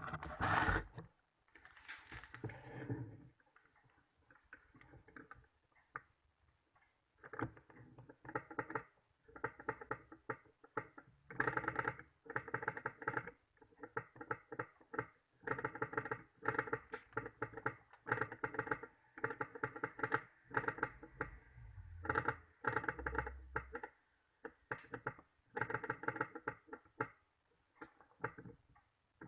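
Sewing machine mechanism clattering in repeated short bursts of rapid ticking, each a second or so long, as it is cycled during adjustment of the shuttle timing.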